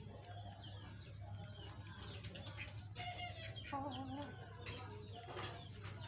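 Chickens clucking while they feed from a bowl: a scatter of short, soft calls over a steady low hum.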